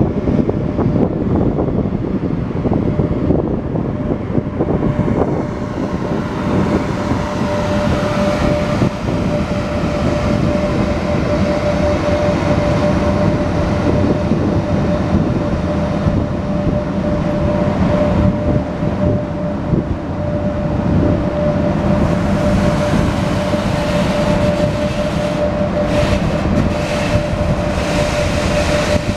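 Three-section 3ES5K electric freight locomotive hauling a mixed freight train past and away, a loud, continuous rumble and clatter of wagon wheels on the rails. A steady whine runs through most of it, and a few sharp clicks come near the end.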